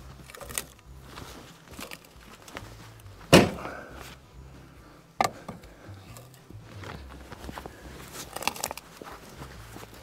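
Steel parts of a band sawmill bed being handled: a loud sharp metal clank with a short ring about a third of the way in and another knock about halfway, amid smaller clicks and footsteps in snow.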